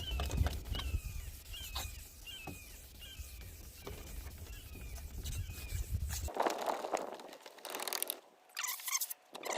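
Headlight lens being hand-sanded with 1500-grit paper in back-and-forth strokes, a small squeak repeating with the strokes. About two-thirds of the way in it changes to a harsher, steady scrubbing rasp.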